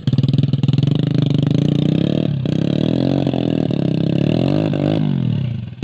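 Motorcycle engine of a grain-hauling trail bike (taksi gabah) labouring on a rough trail, with the throttle worked up and down so the pitch rises and falls several times from about two seconds in, then easing off near the end.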